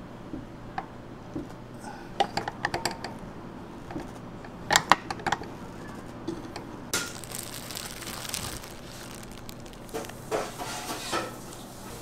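Kitchen clatter: scattered clicks and knocks of utensils and dishes, loudest about five seconds in, with a short hissy rustle about seven seconds in.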